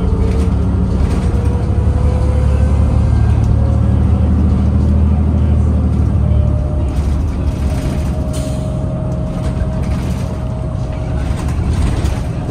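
Cabin ride noise of a New Flyer DE60LFR diesel-electric hybrid articulated bus under way: a steady low drivetrain drone with a faint whine that slowly rises in pitch, and a few rattles near the middle.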